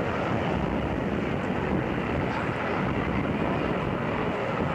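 Boeing Vertol CH-113 Labrador tandem-rotor helicopter in flight: a steady, even rotor and engine noise, with wind buffeting the microphone.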